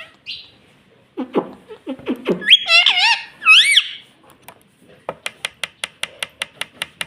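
Indian ringneck parrot chattering, then giving a few loud, high, gliding squawks. Near the end comes a quick, even run of about a dozen sharp clicks, roughly seven a second.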